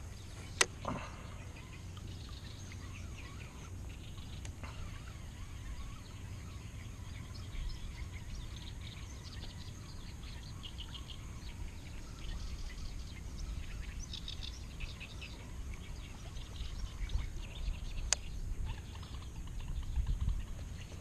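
Outdoor riverside ambience: birds chirp on and off in short clusters over a steady low rumble. There are a couple of sharp clicks, one just after the start and one near the end.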